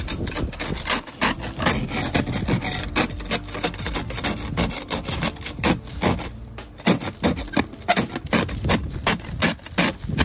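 A kitchen spatula scraping thick glaze ice off a car windshield in quick repeated strokes, with crunching as the ice cracks and breaks away, and a brief pause about six seconds in.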